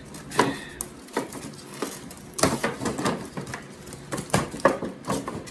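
Taped plastic packaging being handled and pulled at: irregular crinkles and sharp clicks, loudest in clusters about halfway through and near the end.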